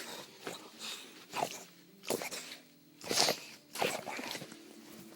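A bulldog giving short, sharp vocal bursts, about four of them, roughly a second apart.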